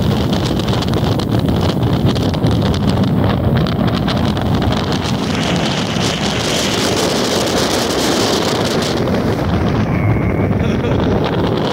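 Strong wind blowing hard against the microphone, a steady low rumble, with the hiss of breaking surf coming up in the middle.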